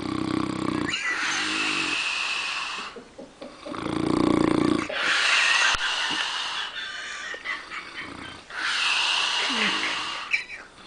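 A man snoring deeply in his sleep: a low rattling snore on the in-breath, then a long airy breath out, repeating roughly every four seconds.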